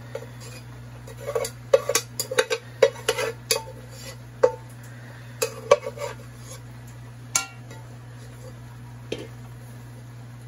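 Metal spoon scraping and knocking against an aluminium pot as cooked rice is scooped out into a larger pan: a run of irregular clinks and taps, thinning out in the second half, over a steady low hum.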